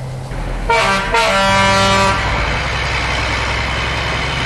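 Mack boom truck: a horn-like blast of steady tones about a second in, lasting about a second and a half, then the diesel engine running loudly.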